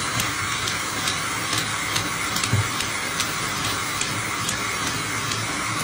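Shower spraying water, a steady even hiss.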